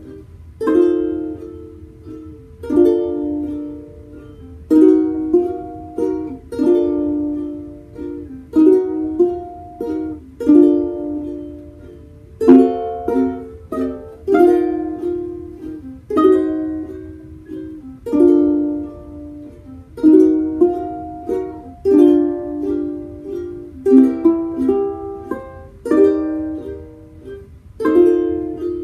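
Two small acoustic stringed instruments, ukulele-like, strummed and picked together in an instrumental tune, with a strong chord about every two seconds and lighter plucked notes between.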